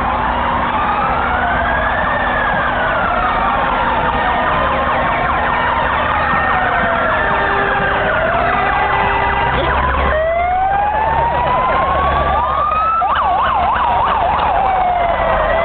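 Sirens of a police car and fire engines driving past in convoy, several wailing at once in slow rising and falling sweeps, over the low rumble of their engines. About ten seconds in a siren starts a new slow rising wail, and near the end one switches briefly to a fast yelp.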